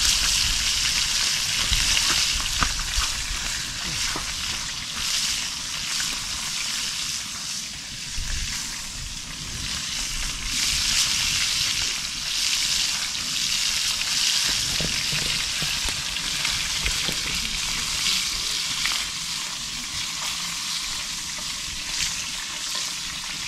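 White-winged doves frying in hot oil: a steady sizzle with occasional small pops and crackles.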